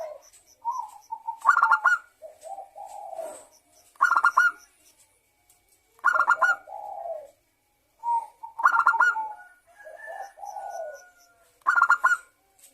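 Zebra dove (perkutut) cooing: a loud, rapidly pulsed phrase repeats about every two and a half seconds, with softer, lower coos in between.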